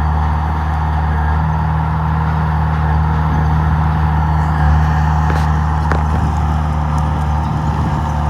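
Komatsu D31P bulldozer's diesel engine running steadily, with a couple of faint clicks about five and six seconds in.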